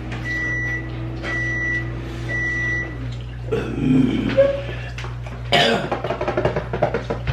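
Three steady high electronic beeps, about one a second, over a low appliance hum for the first three seconds. Then a person coughs and clears their throat from the burn of extremely hot chicken wings. A sudden loud noisy burst about five and a half seconds in is followed by quick irregular sounds.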